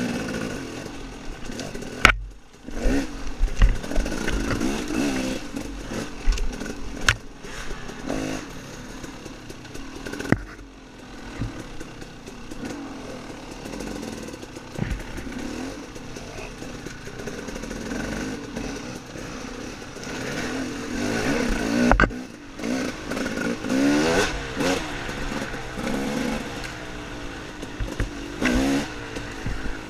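Off-road dirt bike engine revving up and down over and over as it is ridden along a woods trail. Several sharp knocks cut through the engine sound.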